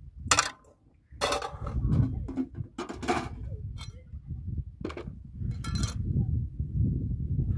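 Cooking pots, a kettle and a metal tray clinking and clattering as they are handled and set down: about six separate knocks, over a steady low rumble.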